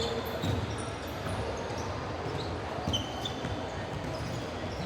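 Basketball game on a hard indoor court: the ball bouncing and sneakers giving short squeaks on the floor, with voices in the background.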